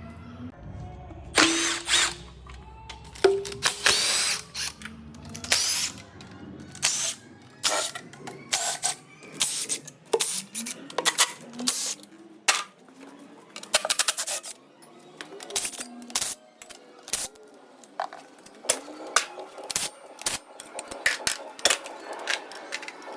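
Power tool run in short repeated bursts, with metallic clicks between them: bolts being undone while the bottom end of a Ford Boss V8 is stripped.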